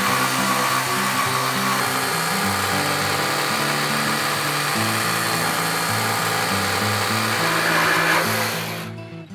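Festool Carvex brushless jigsaw on its automatic speed setting, its blade cutting steadily through a poplar board, stopping near the end. Background music with a plucked bass line plays under it.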